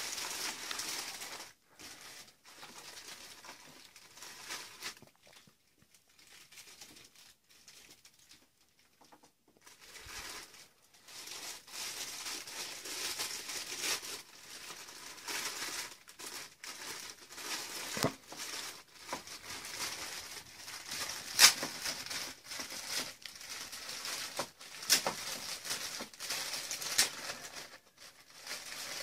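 Clear plastic packaging bags crinkling and rustling as they are handled and opened, with a few sharp snaps. It is faint for the first several seconds and busier from about ten seconds in.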